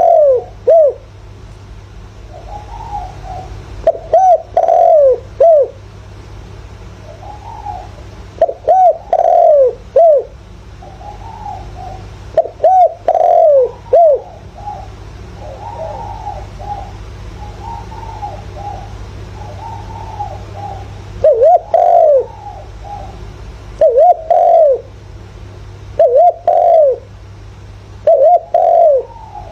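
Spotted dove cooing: loud phrases of three or four falling coos repeat every two to four seconds, with softer warbled notes between them. It is a decoy male's call, the kind used to lure wild doves. A steady low hum runs underneath.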